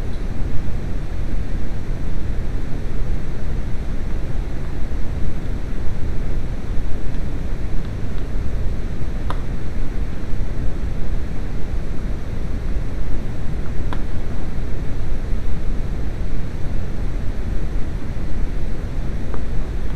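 Loud, steady artificial noise dubbed over the soundtrack to mask shop radio music, heaviest in the low end. Three faint clicks show through.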